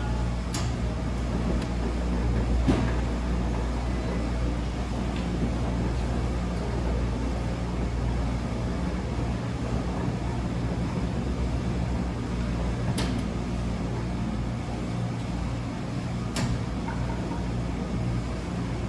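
Wascomat Senior W125 35-pound commercial front-load washing machine running mid-cycle: a steady low motor hum, with a few short clicks or knocks.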